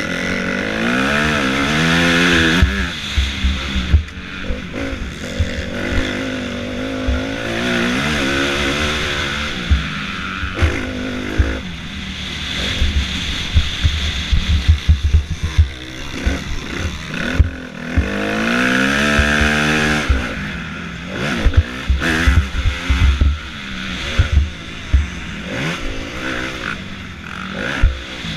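Motocross bike engine close up, revving hard in several long pulls that rise in pitch and then back off, over and over. Short loud knocks and clatter come through as the bike hits ruts and bumps in the dirt.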